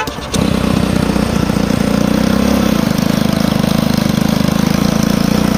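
Homemade mini tractor's small engine running loud and steady with a fast, even firing beat, heard close up from the driver's seat as the tractor drives. It cuts in abruptly about a third of a second in.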